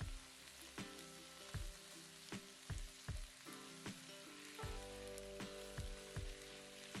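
Onions and tomatoes sautéing in oil in a pan, a faint steady sizzle. Soft background music with a steady beat plays over it.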